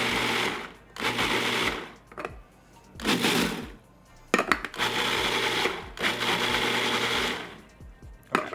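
Food processor pulsed in short bursts of about a second each with brief gaps, its motor whirring as it chops vegetables to a fine, still-chunky texture. A few sharp clicks fall between the pulses.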